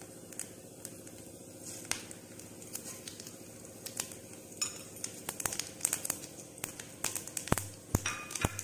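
Mustard, cumin and fennel seeds sputtering in hot mustard oil in a wok: scattered crackles and pops that come thicker and faster in the second half.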